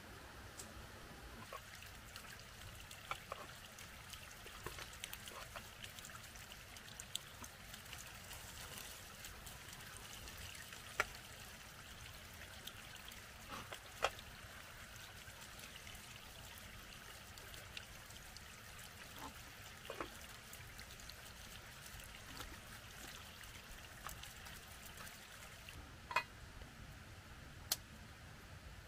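Water trickling steadily, with scattered small clicks and knocks throughout.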